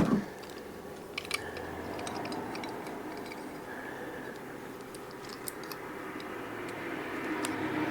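Scattered faint clicks and light metallic rattles of doorknob and lock-cylinder parts being handled and turned, over a steady low hum.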